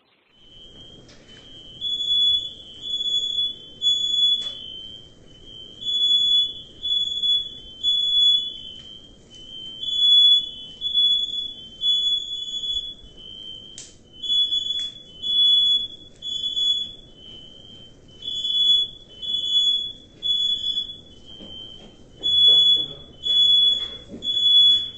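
Residential smoke alarm sounding the three-beep fire pattern: groups of three loud, high-pitched beeps about a second apart, with a short pause between groups, over a low steady rumble. The alarm is set off by smoke from a stove fire filling the kitchen.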